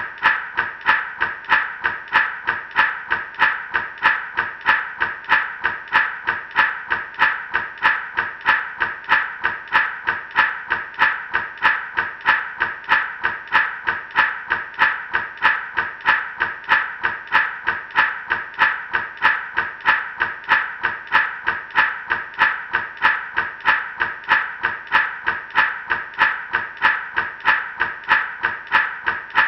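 Gourd rattle shaken in a steady, even rhythm of about two shakes a second, each shake a short, bright rattle.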